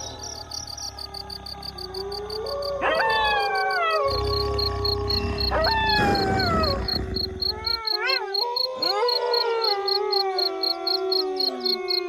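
A pack of wolves howling: long howls that start high and slide down, a burst of short yips about two-thirds of the way in, then several howls overlapping in chorus.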